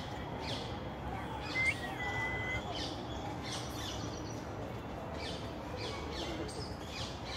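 Birds chirping: many short, quick high calls repeating throughout, with one clear, steady whistle-like note lasting about a second, starting about a second and a half in.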